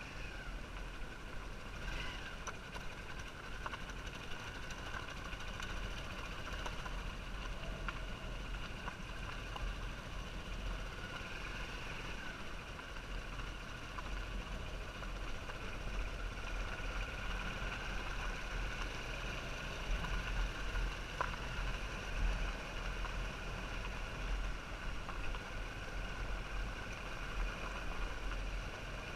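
Motorbike engine running steadily at cruising speed, its drone slightly wavering, over a low rumble.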